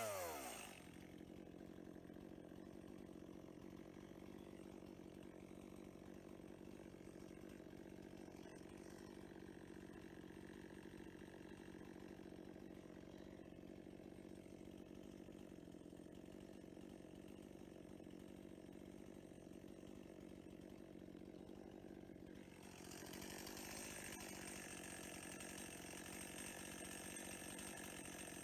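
Two-stroke chainsaw engine idling faintly and steadily after the throttle has been released. A little louder, with more hiss, from about two-thirds of the way through.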